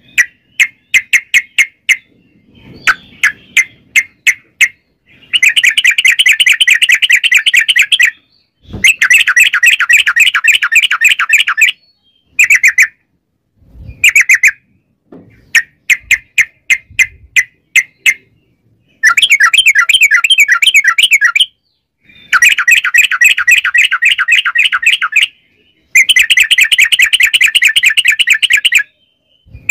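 Caged yellow-vented bulbul (trucukan) singing loudly: short runs of separate sharp notes alternate with long, fast rattling trills of about three seconds each, five such trills in all.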